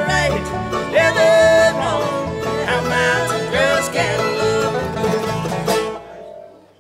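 Live acoustic bluegrass band (banjo, mandolin, fiddle, guitar and upright bass) playing the final bars of a song with sung vocal harmony. The music stops about six seconds in, and the last chord dies away quickly.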